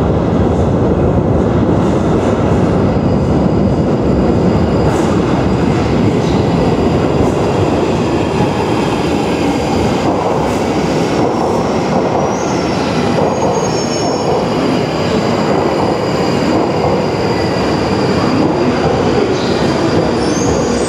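London Underground 1995 Stock tube train arriving from the tunnel and running into the station, its wheels rumbling loudly and steadily on the rails as it brakes. Thin, high wheel squeals come in mostly around the middle of its run in.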